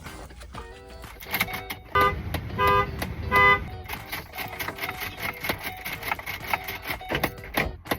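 Car horn sounding in short repeated blasts, the way a car alarm sounds: three loud two-tone honks about two seconds in, then fainter honks, over light clicking.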